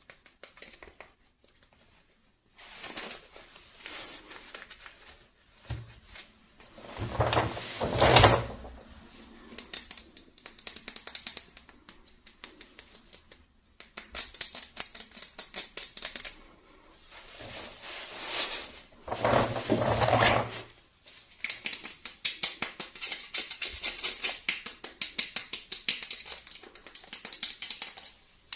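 Hands handling doll packaging and plastic parts: fast runs of fine scratching, clicking and crinkling, with two louder rustling bursts, one about a third of the way in and one about two-thirds in.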